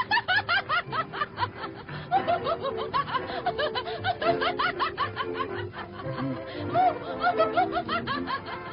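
A woman laughing in a long, unbroken run of rapid, high-pitched peals over light background music.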